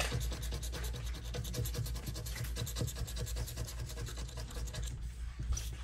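Plastic scratcher tool scraping the coating off a scratch-off lottery ticket in rapid back-and-forth strokes, which die away about five seconds in.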